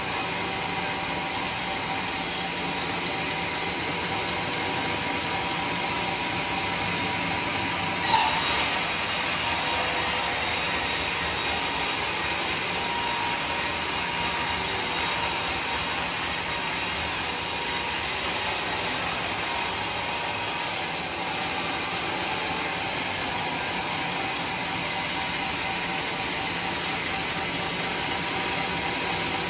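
Homemade band sawmill running, its band blade ripping lengthwise through a teak log. A sharp knock about eight seconds in starts a louder, hissier stretch of cutting that eases off about twenty-one seconds in, with the saw still running steadily.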